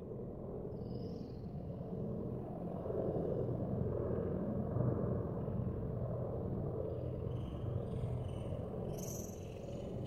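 Steady low rumbling noise, with a few faint high bird chirps about a second in and again near the end.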